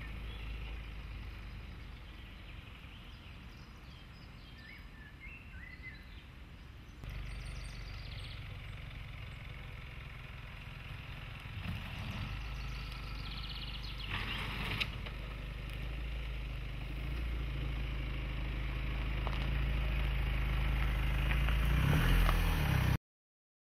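Mitsubishi Outlander's 2.2-litre four-cylinder turbodiesel running at low revs as the SUV crawls over rough off-road ground, a steady low rumble that grows louder toward the end, then cuts off suddenly. Birds chirp a few times in the first few seconds.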